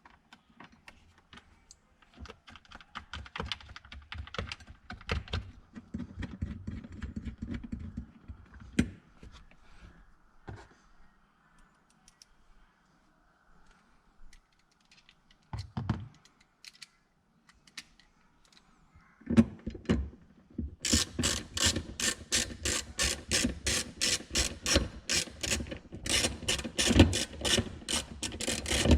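Tools and parts being handled with scattered clicks and knocks. Then, about three-quarters of the way in, a hand ratchet wrench starts clicking fast and evenly, several clicks a second, as a nut or bolt is run in. It stops briefly near the end.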